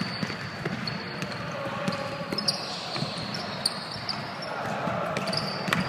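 Indoor basketball game: the ball bouncing and thudding on the gym floor, with repeated short squeaks of sneakers on the court.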